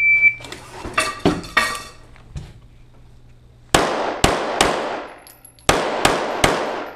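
Shot-timer start beep, some brief handling clatter, then six pistol shots from an STI Trojan fired in two quick strings of three, each shot ringing briefly in the indoor range.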